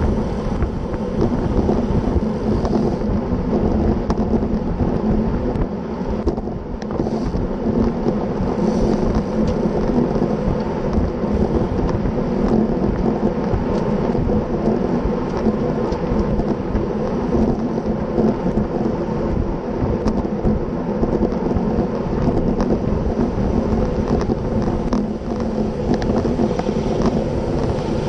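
Steady wind rush on the microphone of a camera riding on a road bike at about 20 mph in a racing pack, mixed with the hiss of bicycle tyres on asphalt.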